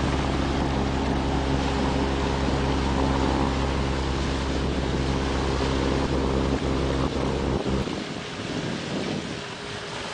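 A steady low motor drone over a rushing, windy noise. It thins out and drops away about eight seconds in.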